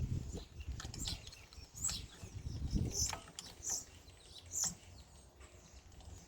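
Faint, scattered clinks and clicks of a homemade bicycle-chain wrench being fitted around a walk-behind tractor's starter ratchet.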